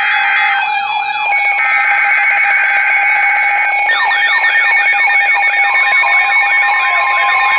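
Weather radio alarms sounding for a test tornado warning: several alarm patterns at once, a steady tone under repeating falling chirps and warbling tones. The pattern changes about a second in and again about four seconds in, and near the end the chirps come about three a second.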